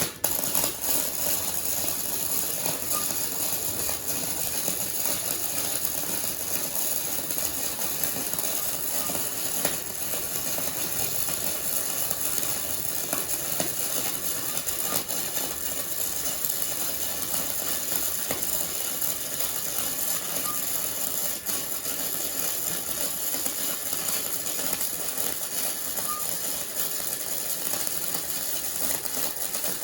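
Flux-core welding arc from a Titanium Easy-Flux 125 welder running a bead on 16-gauge mild steel: a steady, dense crackle that starts suddenly and runs on without a break.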